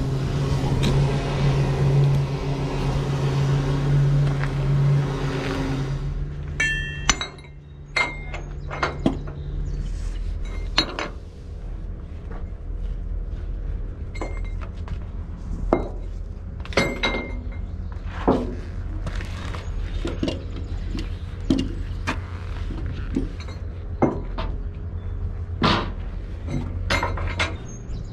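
A vehicle engine runs steadily and stops about six seconds in. Then come irregular sharp metallic clinks and clanks, typical of tie-down chains being handled while a heavy load is secured, over a low steady hum.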